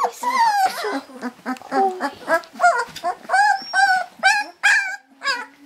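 Young puppies whimpering and squeaking in a quick string of short, high calls, several voices overlapping, ending in a longer, lower whine.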